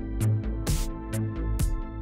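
Electronic background music with a steady beat of about two strikes a second over a bass line.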